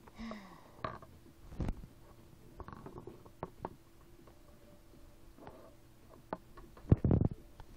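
Small plastic toy figurines handled on a tabletop: scattered light clicks and knocks as they are moved and set down, with a louder cluster of bumps and rubbing about seven seconds in.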